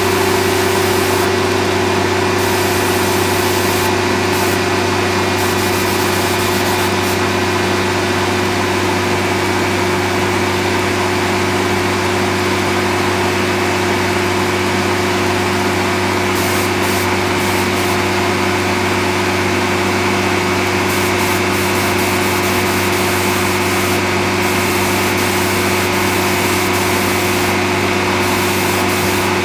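A machine's motor running with a steady, even hum and a constant hiss of air over it, without change.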